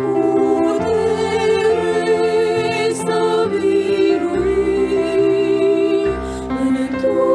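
Music: a singing voice holding long notes with vibrato over instrumental accompaniment with low bass notes.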